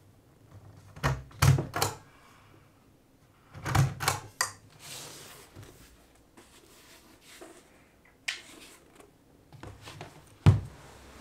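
Objects being handled on a bedside table: groups of sharp knocks and clicks, a papery rustle around the middle, and the loudest knock near the end.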